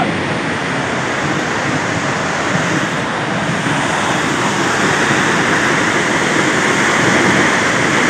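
Steady rush of a waterfall pouring off a rock ledge into a pool, a little louder from about halfway through.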